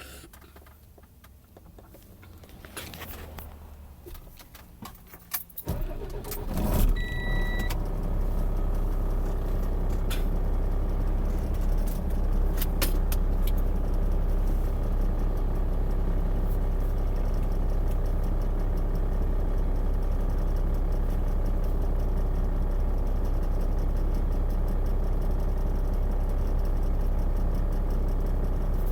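Scattered clicks and rattles, then a car engine starts about six seconds in and idles steadily. A short electronic beep sounds just after it starts.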